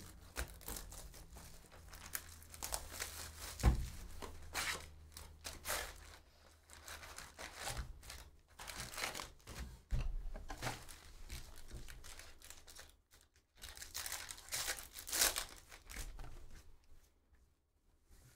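Plastic wrap being torn off a sealed trading-card hobby box and crinkled as the box is opened, in irregular crackly bursts. Dull thumps about 4 seconds and 10 seconds in, as the box is handled.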